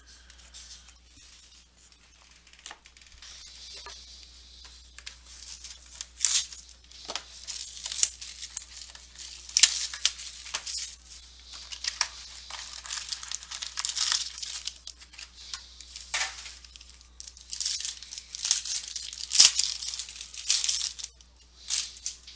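Trading-card box and pack wrapper being handled and torn open: crinkling, tearing rustles with sharp crackles, faint at first and louder after a few seconds.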